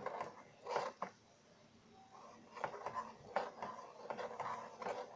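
A spoon stirring and scraping coconut oil mixed with ground fenugreek in a small steel bowl, with a few sharp clinks near the start and then irregular scraping strokes.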